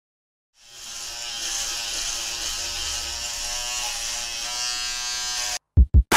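Electric shaver buzzing steadily as it is run over a man's face, starting about half a second in and cutting off suddenly near the end. Two heavy thumps follow.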